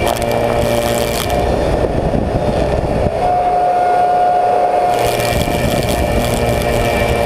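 Slab surfacing machine's cutter head, fitted with six insert knives, running loud and steady while milling a willow slab. Between about one and a half and five seconds in, the hissy upper noise drops away and a steady whine comes through, then the full noise returns.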